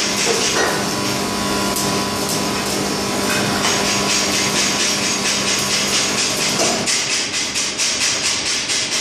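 Manual electric arc welding: welding arcs crackling and sizzling steadily, over a steady hum that stops about seven seconds in.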